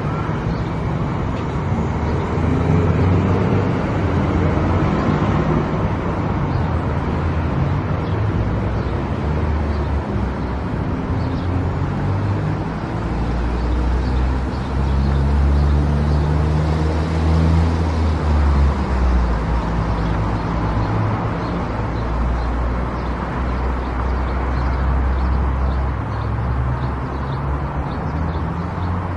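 Car driving along a road: steady engine hum and tyre noise, with the low engine hum swelling and shifting in pitch for several seconds in the middle.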